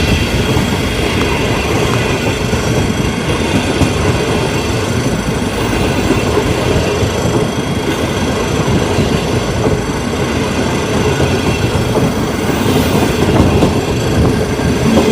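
Sarmiento line commuter train running on the rails, a steady rumble of wheels on track with no break or change.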